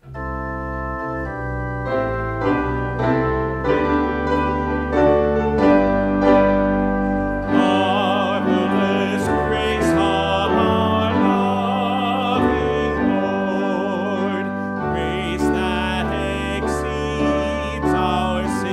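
A hymn played on keyboard with long sustained bass notes as an introduction; about seven or eight seconds in, voices join, singing the first verse with vibrato over the accompaniment.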